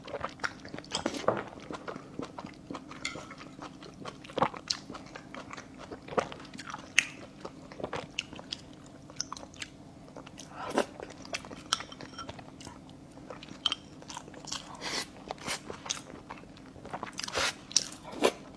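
Close-miked eating: a person chewing braised fish viscera and rice, with irregular wet smacks and sharp clicks of the mouth.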